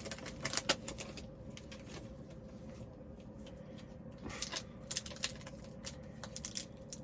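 Foil Pokémon booster packs crinkling and cards being handled: clusters of short crackles and clicks near the start and again about four and a half seconds in, over a faint steady hum.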